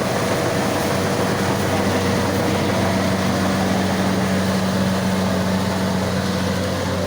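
Combine harvester running steadily: an even engine hum over dense machinery noise, with no change in pitch or level.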